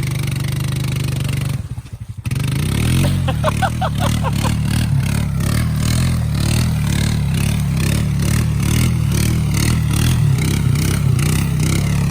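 A 2021 Honda Rancher 420 ATV's single-cylinder engine runs steadily under load while the machine pulls through mud. The engine sound drops away briefly about two seconds in, then comes back. From about three seconds in a fast, regular clatter rides over it.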